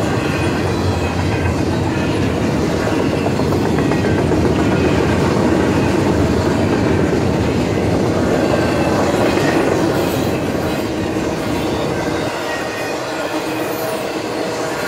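Double-stack intermodal container well cars rolling past: a steady rumble with the clickety-clack of steel wheels on the rails, the low rumble easing a little near the end.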